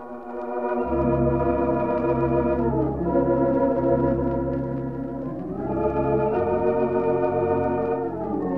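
Wurlitzer theatre organ playing held chords in a slow ballad, on an early 1926–1933 recording. The whole chord slides down about three seconds in and glides back up a little after five seconds.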